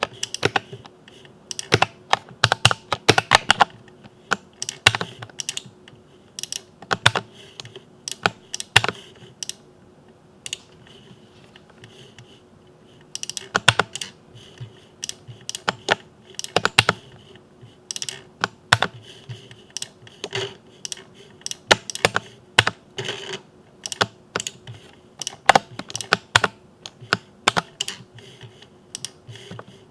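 Typing on a mechanical keyboard with Cherry MX switches: irregular runs of sharp key clicks and clacks, with a lull of sparse strokes about ten seconds in.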